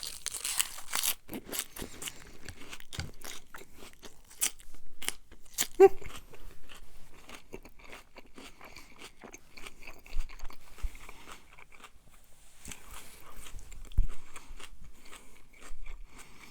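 Close-up chewing and crunching of a mouthful of fresh spinach salad, with irregular crisp crunches and mouth clicks.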